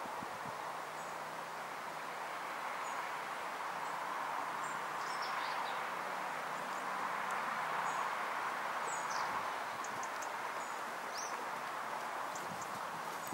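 Steady rustle of wind through trees, with a few faint bird chirps. Muffled hoofbeats on the arena surface come in briefly near the start and again near the end.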